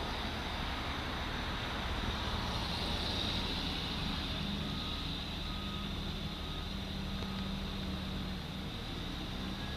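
Fire engine's diesel engine running as it prepares to reverse, with its backup alarm giving four short, faint beeps a little under a second apart in the middle. Passing cars add a swell of traffic noise early on.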